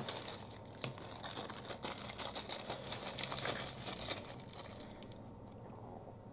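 Paper wrapping crinkling and rustling as it is handled, with small crackles, dying away about four and a half seconds in.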